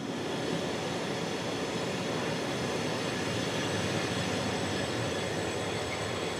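A train running on the rails at a railway station, a steady noise with no clear clicks or beat.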